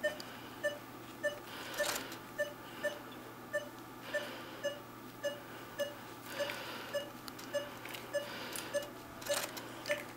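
Anesthesia monitor beeping once per heartbeat of the dog under surgery: short beeps of steady pitch, a little under two a second (about 100 a minute). A couple of sharp clicks sound in between.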